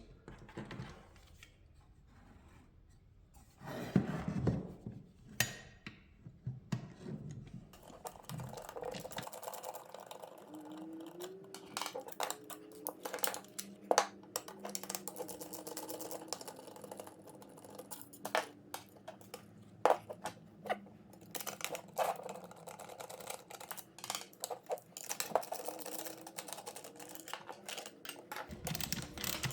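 Scattered clicks, taps and light metallic clatter of hand work on a metal blast gate: its bushings being unbolted, a lock nut turned off and parts handled.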